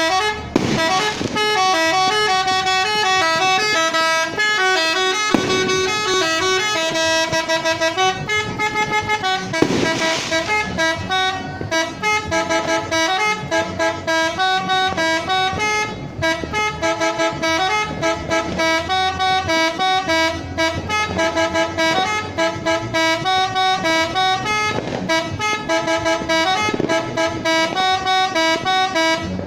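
Tourist bus's telolet multi-tone air horn playing a melody: a rapid run of short horn notes stepping up and down in pitch, on and on without a break.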